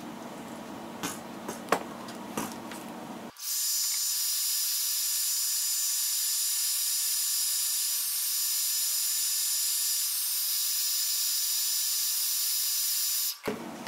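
A few light taps, then about three and a half seconds in a hand-held hot-air blower switches on and runs with a steady loud hiss and a thin high whine for about ten seconds before cutting off sharply. It is heating the iPad 2's glass to soften the adhesive holding the digitizer.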